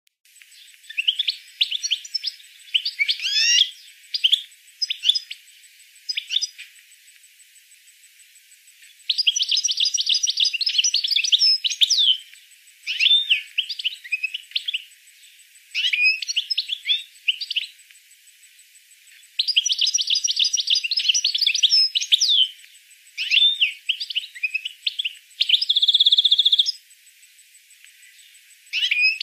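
A songbird singing in repeated phrases of fast chirps and trills, each a second to three seconds long with short pauses between, and one held buzzy note near the end.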